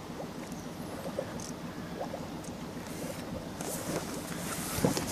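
River water lapping and trickling against the side of an inflatable boat, with a few faint knocks.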